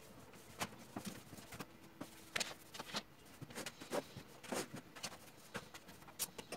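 Scattered light knocks and clicks of household items being picked up and set down on a TV stand's shelves, spaced irregularly.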